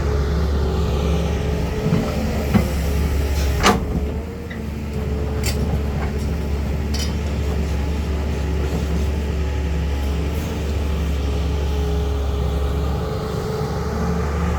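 Caterpillar 320 hydraulic excavator's diesel engine running steadily under load, a continuous low drone. Two sharp knocks come about a second apart, between two and four seconds in.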